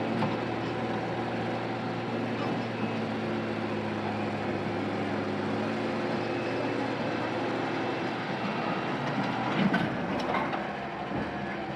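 Heavy diesel machinery running steadily, with a few sharp metallic knocks about ten seconds in.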